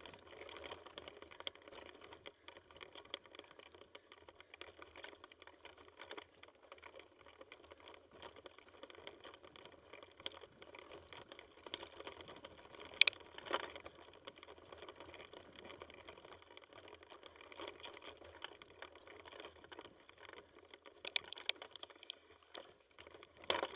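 Mountain bike riding along a rough dirt and stone trail: steady tyre and rattle noise with many small clicks, and a few sharp knocks about halfway through and again near the end.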